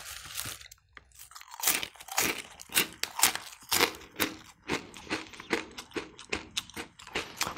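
Crispy snack being chewed close to the microphone: a long run of irregular sharp crunches, after a brief rustle of the foil snack bag at the start as a piece is taken out.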